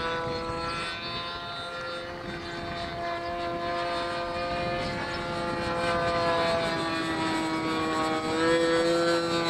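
Nitro-fuelled glow engine of a 1980s RC pattern-ship model plane running steadily in flight, a continuous propeller drone whose pitch shifts slightly in the last few seconds.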